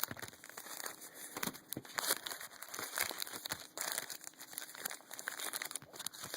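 Trading card packs and cards being handled: irregular crinkling and rustling of pack wrappers and card stock, with small clicks of cards being slid and sorted.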